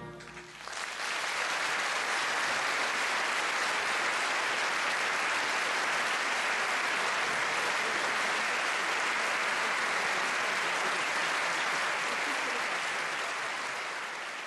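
The last chord of a wind band dies away in the first instant, then a concert audience applauds steadily. The applause fades out near the end.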